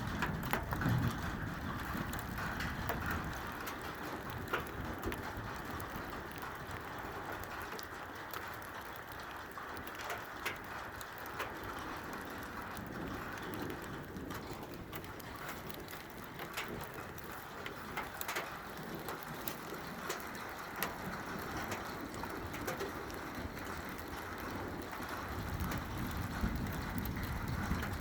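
Steady rain falling, with scattered sharp drops and drips ticking on hard surfaces. A low rumble rises in the last few seconds.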